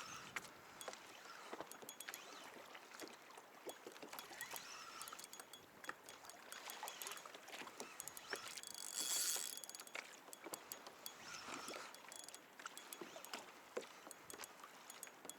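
Water lapping against a fishing kayak's hull, with scattered small knocks and clicks of gear on the deck. About nine seconds in, a louder rushing hiss lasts about a second.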